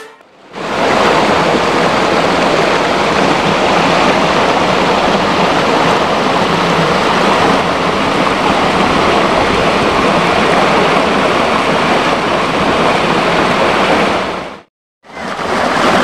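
Waterfall and its boulder-strewn stream rushing, a loud steady wash of falling water. It breaks off for half a second near the end.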